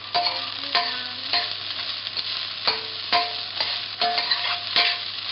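Broccoli florets sizzling in olive oil in a stainless steel pan, stirred with a metal spoon that scrapes and clinks against the pan at irregular intervals, several clinks leaving a brief ringing tone.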